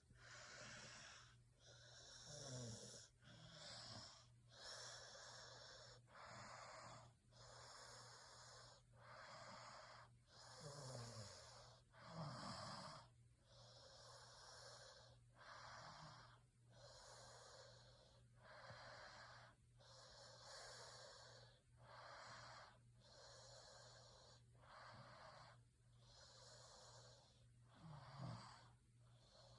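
A sleeping person snoring faintly: steady raspy breaths in and out, one about every second and a half, with a few deeper snores that fall in pitch, near the start, in the middle and near the end.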